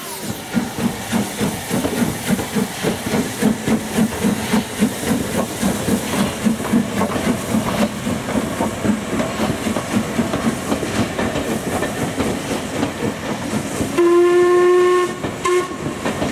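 Steam locomotive working hard as it pulls a train away, its exhaust beating in a quick steady rhythm with steam hissing. Near the end its whistle sounds once for about a second, then gives a short second toot.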